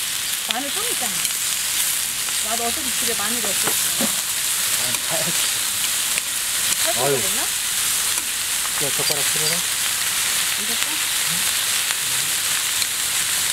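Pork nape and jowl meat sizzling steadily in its fat on a flat griddle plate, as metal tongs turn the pieces.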